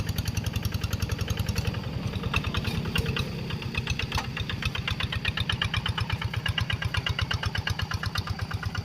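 Kubota single-cylinder diesel engine of a two-wheel hand tractor running steadily with a fast, even beat as it pulls a moldboard plough through a wet paddy field.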